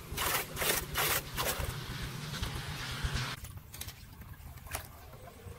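Shallow floodwater splashing and sloshing as debris is raked and pulled by hand from a clogged street drain inlet, with a few sharp splashes in the first second and a half, then quieter after about three seconds.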